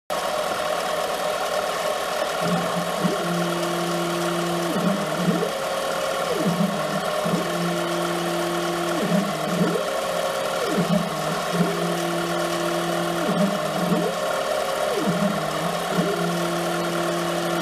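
CNC-converted 7x10 mini-lathe cutting an M6x1 thread, with a steady machine whir from the running spindle. From about two and a half seconds in, the stepper drives set up a repeating cycle about every two seconds. A steady whine sounds during each threading pass, then a short higher tone rises and falls back as the carriage returns for the next pass.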